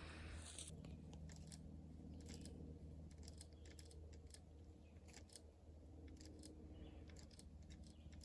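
Near silence, with faint scattered ticks and clicks over a low steady hum.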